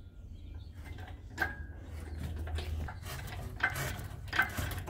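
Scattered light metal clinks and knocks, a few with a brief ring, as a chain-slung engine is jacked up on an engine crane, over a low steady hum.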